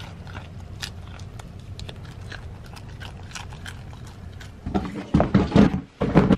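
A goat crunching and chewing a crisp snack fed from a hand, heard as a run of short crisp crunches. Near the end come a few louder pitched, voice-like sounds.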